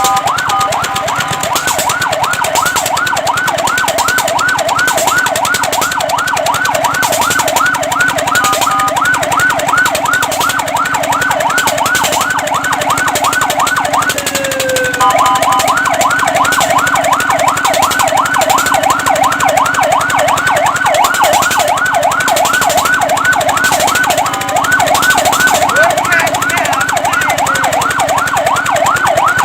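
Fire truck electronic siren in a rapid yelp, its pitch sweeping up and down several times a second. The sweep is interrupted a few times by a brief steady two-note tone and once by a single slow glide.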